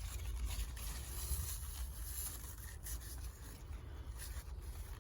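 Rustling and rubbing as tomato plants and garden string are handled during tying up, over a steady low rumble.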